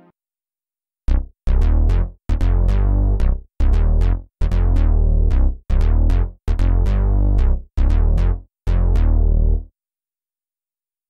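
Roland SH-4d's Juno-106 model playing the "Ju-Funk Bass" preset: a funky synth bass line of short notes, starting about a second in. Each note opens with a bright filter snap that closes quickly over a deep low end.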